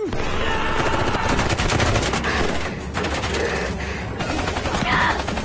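Rapid gunfire: a dense, unbroken barrage of shots that starts abruptly and holds a steady loud level throughout.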